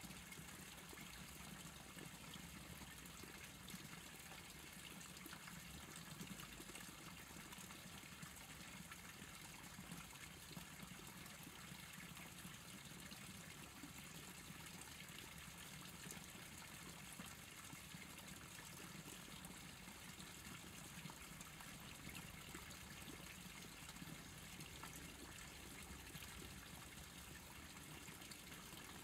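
Faint, steady trickle of stream water, with a low steady hum under it.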